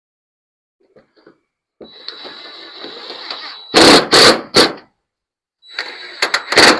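Power drill driving screws through a metal gutter guard: twice the motor runs with a steady whine, then loud rattling bursts as the screw bites and seats, with a short pause between the two.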